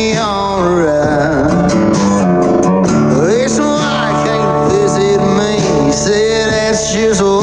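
Background music: a song with a singing voice over strummed guitar.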